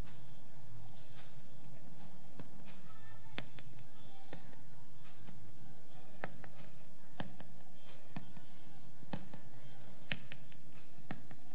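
A string of sharp taps and knocks, the strongest coming about once a second, over a faint low hum.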